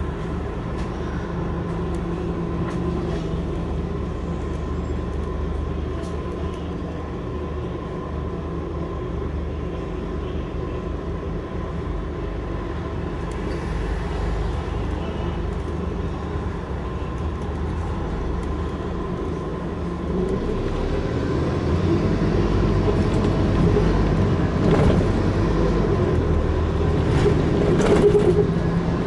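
Scania N230UD double-decker bus's five-cylinder diesel engine, heard from inside, idling steadily at a standstill, then pulling away and getting louder as it accelerates about twenty seconds in.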